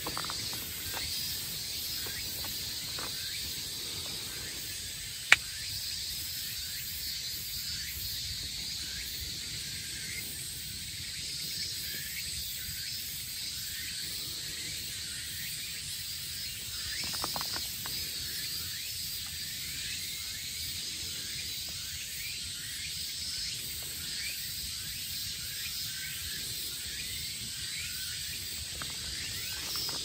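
Outdoor forest ambience: a steady, high chorus of insects chirring throughout, with a single sharp click about five seconds in.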